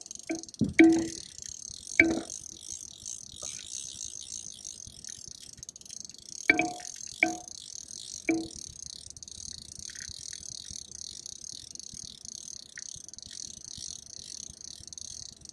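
Spinning reel ticking steadily and fast under the pull of a hooked sturgeon, with a few sharp knocks that ring briefly, twice near the start and three times close together in the middle.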